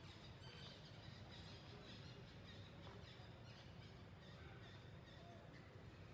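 Near silence: faint outdoor ambience with a low steady hum and a few faint, short, high chirps.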